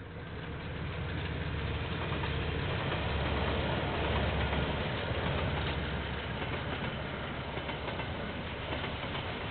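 Two diesel locomotives hauling a freight train past at close range. Their engines' low rumble builds to its loudest about four seconds in, then eases a little as the wagons roll by on the rails.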